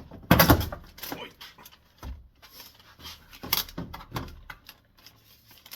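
Plastic retaining clips popping free as the FJ Cruiser's rear door trim panel is pulled off. There is a loud pop about half a second in, then several lighter clicks and knocks of plastic.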